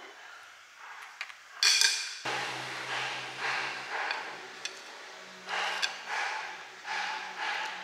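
A metal fork clinking and scraping against a plastic bowl of rice: one sharp clink about two seconds in, then a run of short scrapes.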